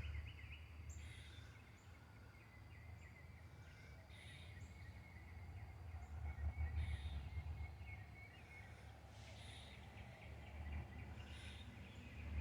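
Quiet outdoor ambience: a low, fluctuating rumble with faint, short, high bird chirps every second or two.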